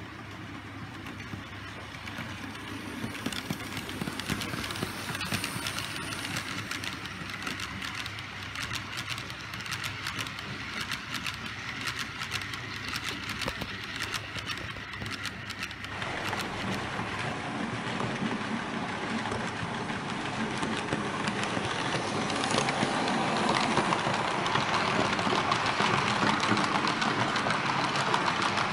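Märklin H0 model freight train running on metal M-Track, its wheels rumbling with many sharp clicks over the rails. It gets louder and fuller from about halfway through as the wagons pass close by.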